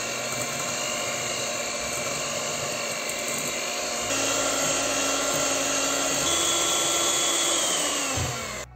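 Electric hand mixer running at speed, its beaters whisking eggs and sugar in a glass bowl until the mixture turns pale. The motor's whine shifts in pitch a couple of times, then falls and cuts off near the end.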